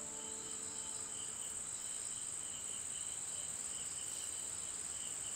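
Insects chirring in a steady high-pitched drone, with a second, lower chirping that comes and goes. A plucked musical note fades out at the very start.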